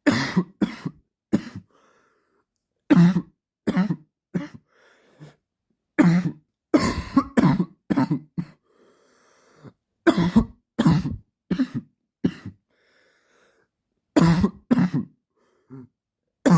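A man coughing a dry cough, in about five fits of three to five short coughs each, with pauses and faint breaths between the fits.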